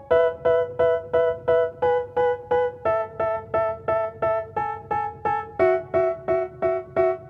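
Background music: a keyboard playing short, evenly repeated chords, about three a second, moving to a new chord every second or two.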